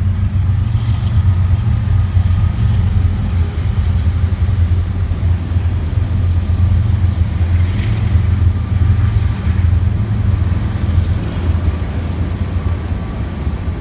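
Freight train passing close by, a steady loud low rumble of its cars rolling along the track.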